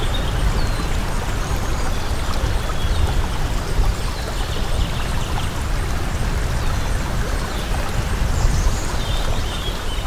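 Running water, a steady rushing flow, with faint short high chirps now and then.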